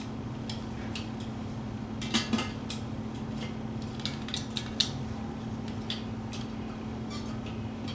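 Scattered light clicks and clinks of a pop-up drain stopper and its lever knocking against a porcelain sink as they are fitted into the drain tailpiece, over a steady low hum.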